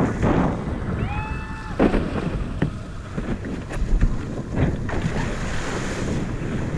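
Wind buffeting the microphone and water rushing and splashing against a windsurf board under sail, with a short pitched cry about a second in.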